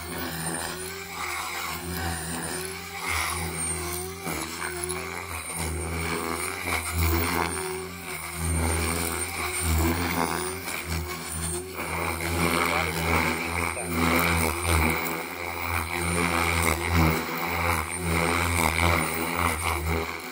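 OMPHOBBY M4 Max electric RC helicopter in flight: rotor blades chopping under a steady high whine. It swells and dips in loudness every few seconds with the manoeuvres.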